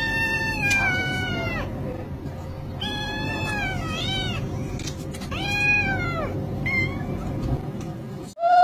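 Kittens meowing: a series of high-pitched meows, each about a second long, over low steady background noise.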